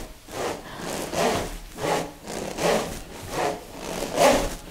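A pair of smovey vibration rings, spiral plastic tubes with steel balls inside, swung back and forth: the balls roll round the tubes with a rasping rush that swells on each swing, about six swings in a steady rhythm.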